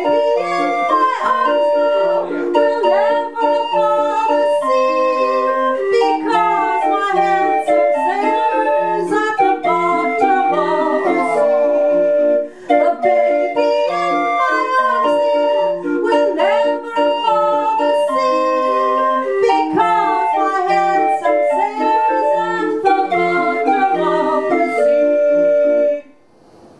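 A 20-tone hand-cranked street organ built by Florian Tilgner playing the tune: a melody of steady held notes over short, evenly repeated bass notes. It stops abruptly about 26 seconds in.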